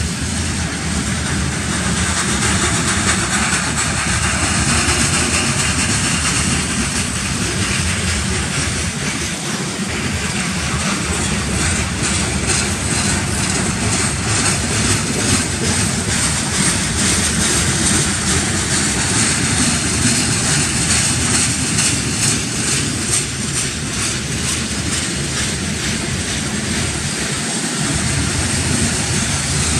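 Freight cars rolling past: a steady loud rumble and hiss of steel wheels on rail, with a faint quick rhythmic clatter through the middle stretch.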